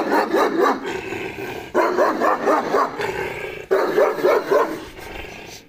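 A dog barking loudly in three runs of rapid barks, each run lasting a second or two, with short pauses between them.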